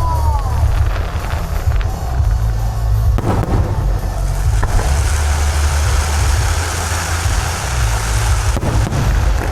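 Fireworks barrage: a continuous low rumble of booms, with a few sharp bangs about three seconds in and near the end, and a crackling hiss in the middle.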